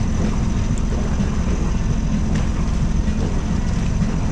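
Sailboat's inboard engine running steadily under motor, a continuous low rumble.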